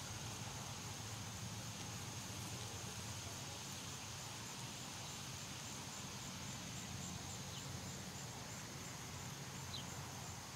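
Steady high-pitched insect trilling in the grass, over a low steady rumble. A couple of short high chirps near the end.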